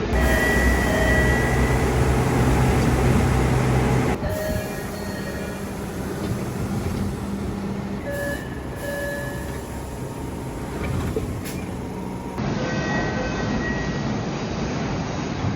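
A run of spliced recordings of MBTA Orange Line subway cars' exterior door chimes: each is a brief chime of a note or two over the steady hum of a train standing at a platform.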